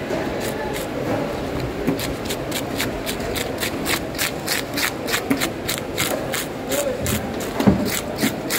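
Hand-held fish scaler scraping scales off a large whole fish in quick, even strokes, several a second, with scales rasping and flicking off, and one heavier knock near the end. A low murmur of voices sits underneath.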